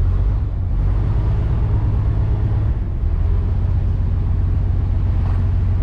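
A ferry's engine running steadily: a deep, even drone with a faint hiss above it.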